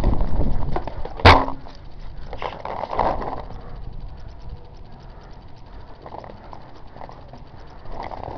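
Footsteps and gear scuffing on dry dirt as a paintball player moves up to a stack of tyres, with one sharp crack about a second in that is the loudest sound, followed by a few softer knocks.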